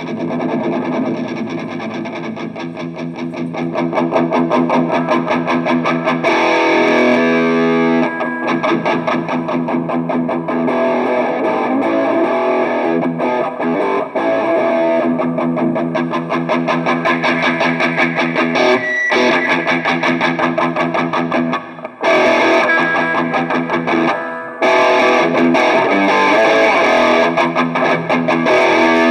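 Electric guitar through an Arcano Metal End distortion pedal and amp, playing fast distorted riffs with rapid picking. The playing stops briefly twice in the second half.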